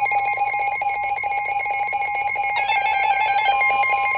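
Several NOAA weather radios sounding their electronic alert beeps in a rapid repeating pattern as a high wind warning comes in. About two and a half seconds in, a steady alarm tone joins: the weather radio warning alarm tone that comes before the spoken National Weather Service message.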